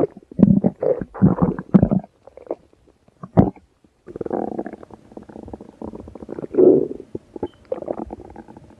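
Stomach growling sound effect: a string of irregular gurgling rumbles, a pause with one sharp click about three and a half seconds in, then a longer, louder gurgle in the second half.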